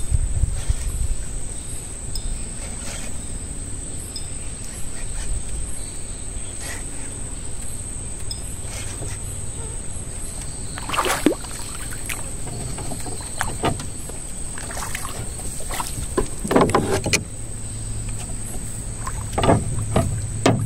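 A fishing reel being cranked against a heavily loaded rod while a hooked fish is fought from a small boat. There is water sloshing at the hull and a few short louder sounds in the second half, over a steady low hum and a constant thin high-pitched whine.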